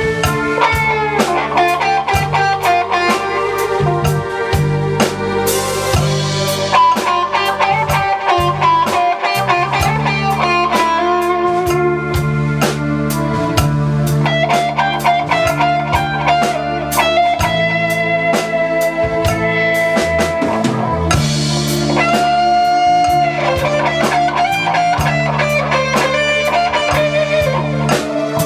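Live band playing an instrumental break with no singing: a guitar plays the lead over bass and a drum kit keeping a steady beat. There are cymbal crashes about six seconds in and again about 21 seconds in.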